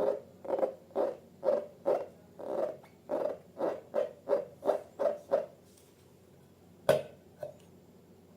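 Glossy slime squelching as it is worked, about two to three squishes a second, stopping about five and a half seconds in. A sharp click follows, then a fainter one.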